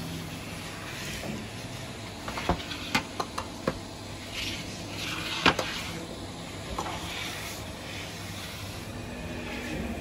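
Metal baklava trays and a long wooden oven peel knocking and scraping at a bakery oven: a handful of sharp knocks, the loudest about five and a half seconds in, over a steady hiss.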